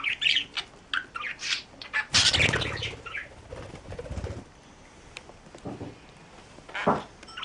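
A bird calling in quick short chirps, then a burst of rustling about two seconds in, with a short call near the end.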